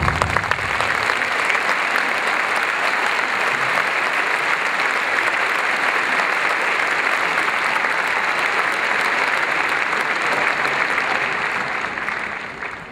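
Large arena crowd applauding, a dense steady clapping that starts as the music cuts off and tapers away near the end.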